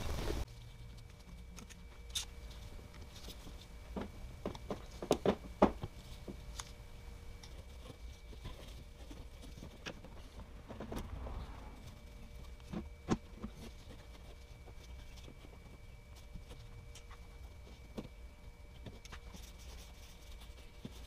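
A steady running noise cuts off about half a second in. What follows is a faint steady hum with scattered light clicks, taps and rustles of gloved hands handling a hose fitting, a few of them sharper around the middle.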